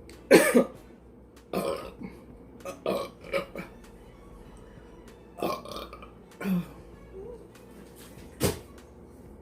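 A woman burping repeatedly after gulping carbonated ginger ale: a string of short separate burps, the loudest about a third of a second in. A brief sharp click comes near the end.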